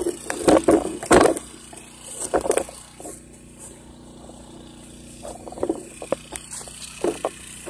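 A few knocks and scrapes of handling, loudest about a second in, over a steady low hum from a second generator running in the background.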